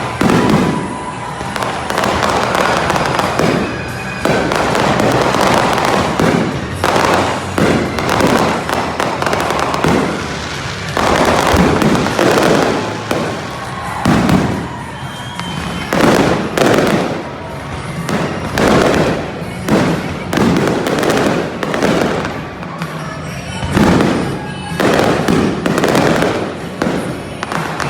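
Fireworks bursting over and over in quick succession, sharp bangs and crackle, with rock music playing over stadium speakers.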